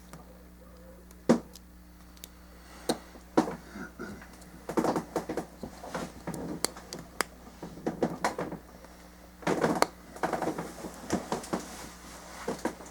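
Plastic model kit parts clicking and tapping as pieces are handled and pressed together, in scattered sharp clicks and short clusters of knocks, over a faint steady hum.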